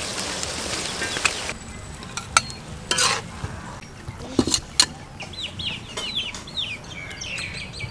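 Sliced sweet peppers hitting a hot wok, with a burst of sizzling for the first second and a half. A few sharp clinks of utensils and dishes follow, then a bird chirps over and over in short quick notes near the end.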